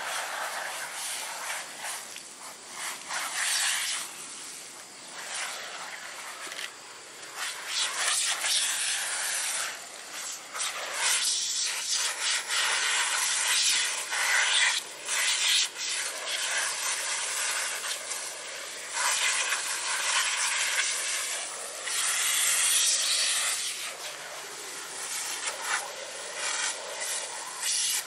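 Garden hose spraying water, a steady hiss that swells and dips in loudness as the water runs over hair and clothes.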